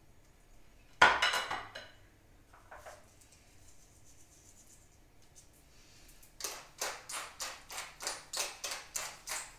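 A metal clatter with a brief ring about a second in as kitchen tongs are set down on a plate. From about six seconds in, a hand pepper mill grinds in a quick run of crunching clicks, about five a second.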